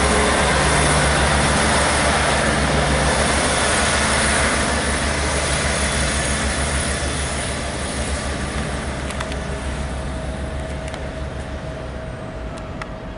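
Diesel multiple unit departing, its underfloor diesel engines running loudly and then fading steadily as the train draws away. A few sharp clicks near the end come from the wheels running over the track.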